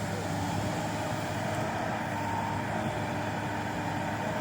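Diesel engine of an excavator with a sugarcane grapple running steadily, a constant hum with no revving or knocks.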